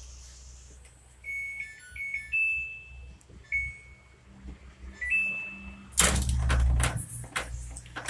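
Samsung washing machine's control panel beeping a short stepped-tone tune. About six seconds in, a loud mechanical clatter with a low hum as the spin-cycle clutch actuator (solenoid) pulls the shift lever, working as it should.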